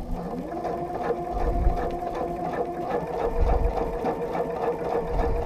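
Domestic sewing machine running steadily with a ruler foot, stitching a straight line of free-motion quilting. The motor's pitch rises just after the start as it picks up speed, then holds, with a quick regular ticking of the needle.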